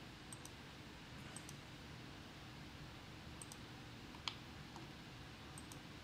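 Faint computer mouse clicks, a few quick press-and-release pairs spread out, with one sharper click about four seconds in, over a faint low room hum.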